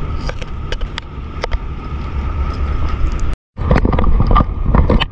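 A boat's engine runs steadily with a low rumble and a constant hum, while sharp knocks and clicks come from handling on the deck. The sound cuts out for a moment about three and a half seconds in, then resumes louder.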